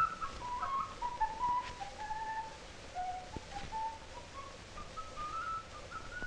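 Solo Andean flute playing a slow melody of held single notes that step down and then climb back up near the end, over the hiss of an old film soundtrack.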